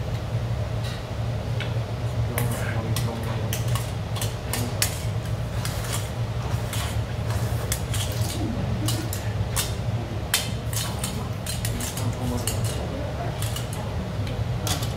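Eating at the table: metal chopsticks clink against a stainless steel bowl, many sharp separate clicks, along with slurps of noodles and broth from the bowl. A steady low hum runs underneath.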